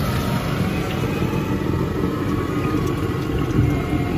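Steady street traffic noise: idling and passing motorcycle and car engines, a low continuous rumble.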